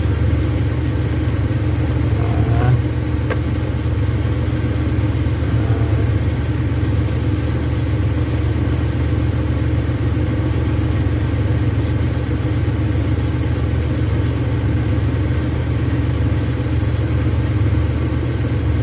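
A machine running steadily with a low, even hum, with a couple of faint clicks about three seconds in.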